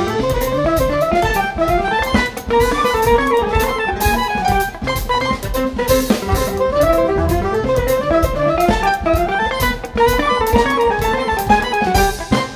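Live jazz band playing: piano, guitar, bass guitar and drum kit, with fast runs of notes that climb and fall again every couple of seconds over a steady drum groove.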